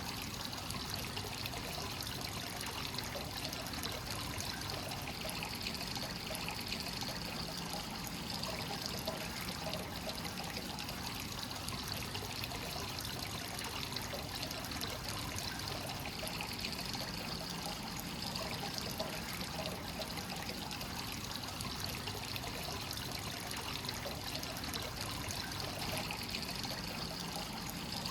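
Free-flowing hot-spring source water pouring steadily into a bath, a continuous trickling and splashing flow with small gurgles.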